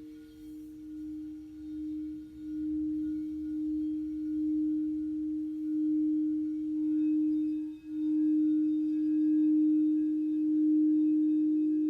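Singing bowl played around its rim: one sustained ringing tone that swells louder in slow waves, dipping briefly about eight seconds in, with fainter higher overtones coming in about seven seconds in.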